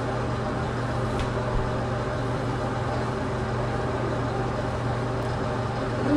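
A steady low mechanical hum that runs without change.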